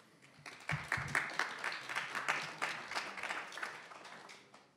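Audience applauding, swelling about half a second in and fading out near the end, with two dull knocks about a second in.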